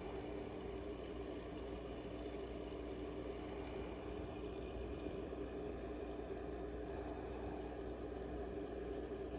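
Aquarium air pump humming steadily through clear airline tubing into the hatching bowl, with a faint gurgle of water.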